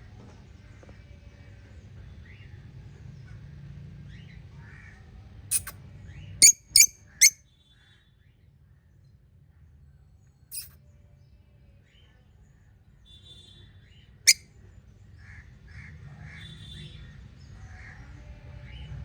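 Pet budgerigars chirping softly over a low steady hum, broken by a few very short, loud, sharp snaps: three in quick succession about six to seven seconds in, and single ones near five and a half, ten and a half and fourteen seconds.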